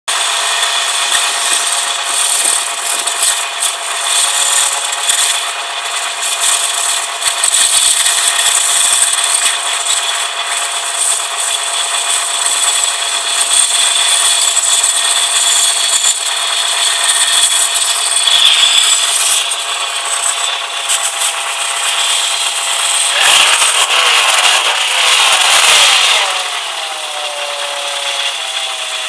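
A persistent squeak from a vehicle: several high tones held steady, with a rubbing, scraping quality. Around 23 to 26 seconds in it grows louder and rougher, then eases into tones that glide downward.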